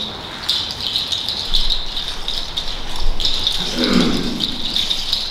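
Haudenosaunee dance rattle shaken fast and steadily, opening the stomp dance.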